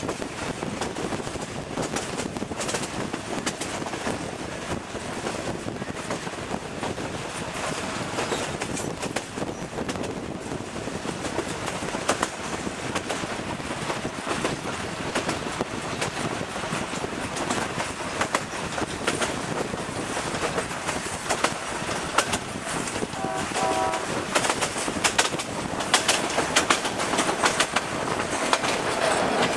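Passenger train running along the track, heard from an open carriage window: a steady rumble of wheels on rails with short clicks from the rail joints. The clicks come louder and more often near the end.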